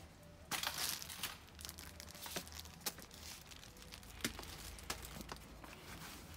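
Clear plastic wrapping crinkling and rustling, loudest in a burst about half a second in, then softer, with a few sharp clicks scattered through.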